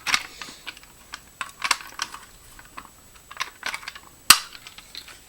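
Handling clicks and knocks from a Fire-Lite BG-12L fire alarm pull station as its front cover is opened, with a single loud sharp snap about four seconds in.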